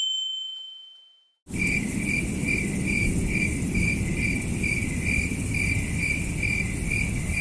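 Cricket-chirping sound effect: a steady pulsing chirp, about two to three chirps a second, over a low background hiss, starting about a second and a half in. Before it, the tail of a ringing tone fades out.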